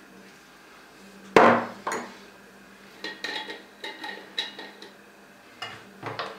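Small glass spice jar with a metal lid being opened and handled on a wooden cutting board. A sharp knock comes about a second and a half in, then a string of light clicks and clinks.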